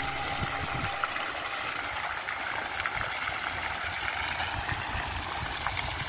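Garden fountain: thin water jets splashing steadily into a pond, an even splashing hiss with small droplet patters. Background music trails off about a second in.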